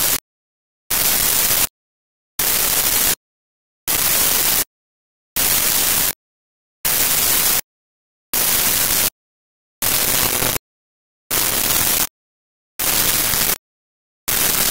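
Loud bursts of static-like hiss, each about three-quarters of a second long, repeating steadily every second and a half with dead silence between.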